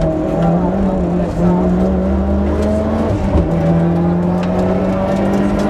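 Mitsubishi Lancer Evolution VIII's turbocharged four-cylinder engine heard from inside the cabin under hard acceleration: the revs climb, drop with an upshift about three seconds in, then climb again.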